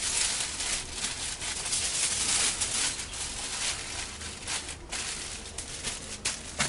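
Aluminium foil crinkling and crackling as it is wrapped and pressed tightly around a piece of meat.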